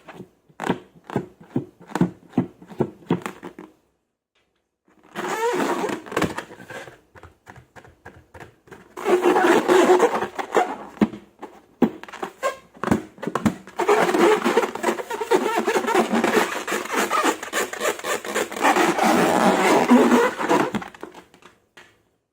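Slime being squished and worked by hand: first a quick run of sharp wet pops and clicks, then, after a short pause, long stretches of dense crackling and squelching.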